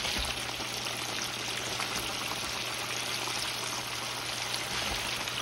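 Cornmeal-breaded catfish pieces deep-frying in hot oil in an enamelled pot: a steady, dense sizzle and bubbling.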